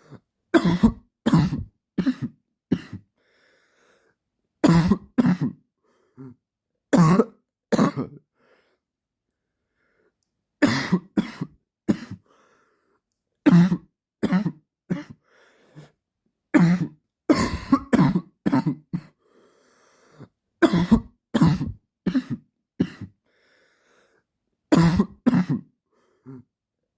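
A man's dry cough, repeating in fits of two to four sharp coughs with short silent pauses between them.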